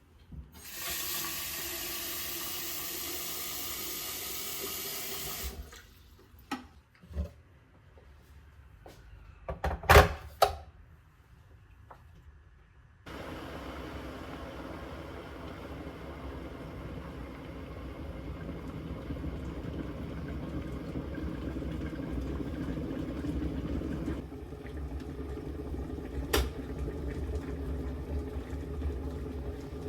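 Water tap running for a few seconds, then several knocks and clinks of handling, the loudest a double knock about ten seconds in, then a long steady rush of running water that shifts in tone later on.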